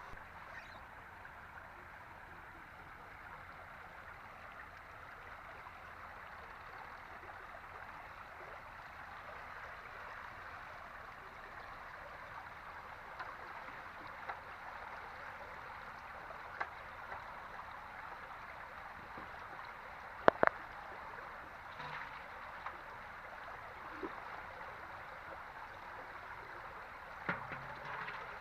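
Steady rush of running flood water, with a few short sharp knocks scattered through it; the loudest is a quick pair about twenty seconds in.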